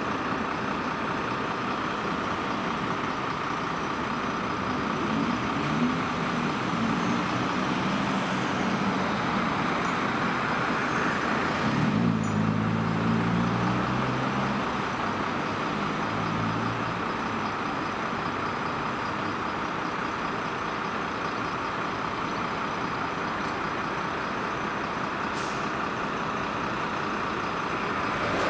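Diesel engines of heavy fire trucks running in the street. The engine note swells twice, around 5 and 12 seconds in, as a truck pulls away, and there is a short hiss of air, like an air brake, about 11 seconds in.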